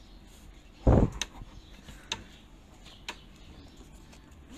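Handling noise: a dull thump about a second in, then a few sharp clicks about a second apart.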